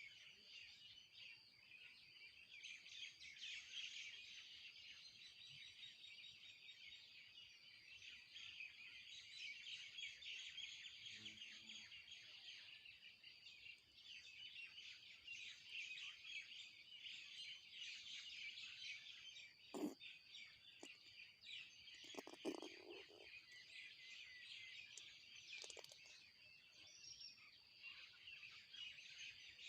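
Many small birds chirping continuously in a faint, dense chorus. A sharp click comes about twenty seconds in, followed by a short lower sound a couple of seconds later.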